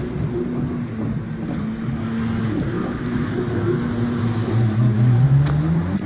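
An engine running steadily, then rising in pitch and getting louder from about four seconds in.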